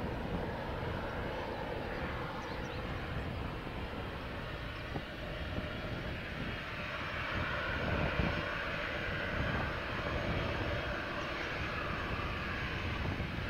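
Boeing 737-800's CFM56-7B turbofan engines running as the airliner taxis and turns onto the runway, a steady hissing whine that grows louder about halfway through. Gusty wind buffets the microphone underneath.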